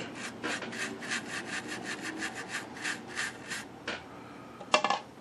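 A small soft-bristle brush, slightly damp, scrubs stuck-on dirt from the paper cone of an old Westinghouse H-196 television speaker in quick strokes, about five a second. The strokes stop after about three and a half seconds, and a brief louder clatter of handling follows near the end.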